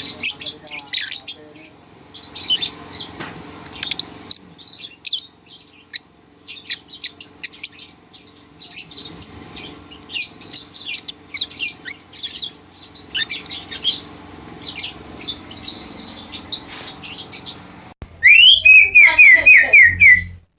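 Lovebirds chattering: quick high chirps in bursts throughout. Near the end a much louder run of about eight quick rising calls cuts in for about two seconds.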